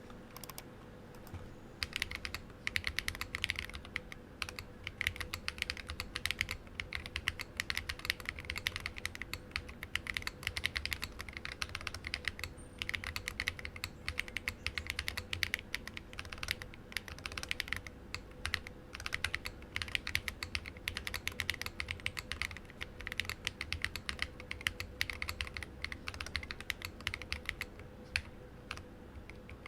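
Typing on a Lily58 split mechanical keyboard with Glorious Panda tactile switches (sliders lubed with 205g0, no films), an acrylic plate and open case, and SA-profile PBT keycaps. A quick, continuous run of keystrokes starts about a second and a half in and carries on with brief pauses.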